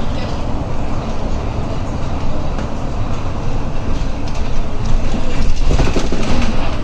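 Cabin noise of an articulated city bus on the move: a steady low engine and road rumble with rattling from the cabin. The rattling gets louder and clattering about five and a half to six and a half seconds in.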